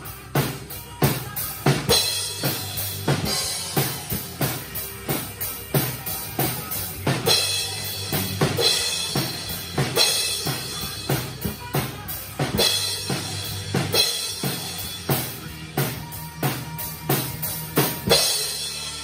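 Acoustic drum kit played in a steady rock beat, with bass drum and snare hits and repeated crash cymbal strikes. It ends on a loud crash just before the end.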